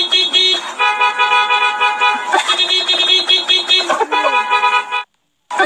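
Car horn sounding in many rapid, repeated toots, a stacked pitched blare pulsing on and off fast. It cuts off abruptly about five seconds in and starts again half a second later.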